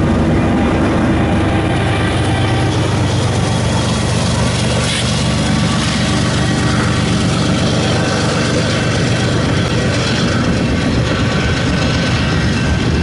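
Freight train of tank cars passing close by at speed: a steady, loud rumble and rattle of steel wheels on the rails over a low hum.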